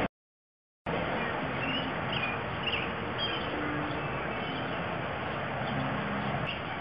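Outdoor background noise that drops out for under a second near the start, then runs steadily, with faint short bird chirps in the first half.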